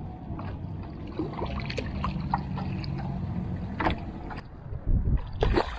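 Water splashing and sloshing against the side of a small skiff as a hooked tarpon thrashes at the surface beside the boat, over a low steady rumble, with a louder splash about five seconds in.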